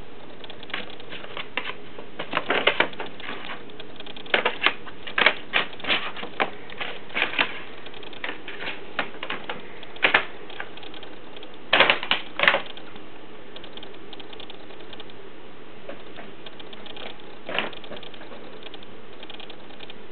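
Brown paper shopping bag crinkling and crackling in irregular bursts as a cat paws at it and pushes its head inside. The bursts come thickest in the first half, with a last one near the end.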